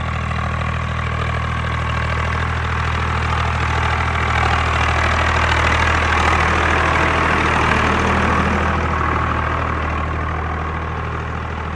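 Swaraj 744 tractor's diesel engine running at a steady, unchanging speed while dragging a rear-mounted levelling blade through loose soil. A hiss of scraped earth and tyre noise swells in the middle as the tractor passes close.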